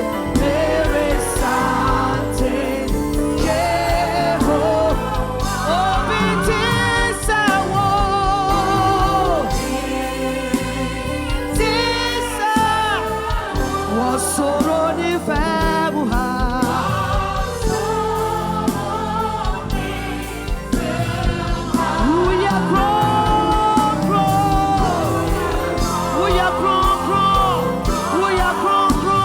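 Gospel worship song: a singer with vibrato, backed by a choir and a steady instrumental band.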